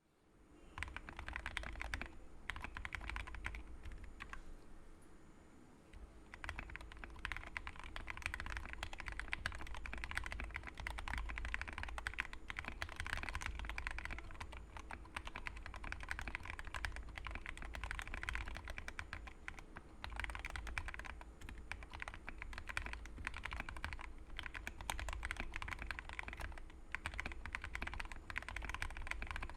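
Continuous fast typing on a Tecware B68 mechanical keyboard with lubed Gateron Yellow linear switches, foam and tape mods and PBT XDA keycaps: a dense stream of key clacks, with a short lull about four seconds in.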